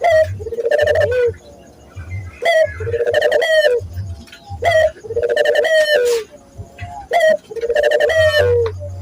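Barbary dove (local puter dove) cooing repeatedly, loud two-part coos coming about once every second or so, each with a short lead-in note and a longer rolling note.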